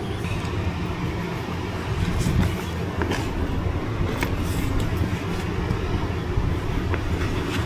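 Steady low rumble with a few light clicks and rattles of fishing gear being packed up, about two, three and four seconds in.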